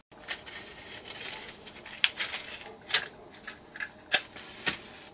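A matchbox and matches being handled: a string of short, sharp clicks and taps as the box is opened and a match taken out.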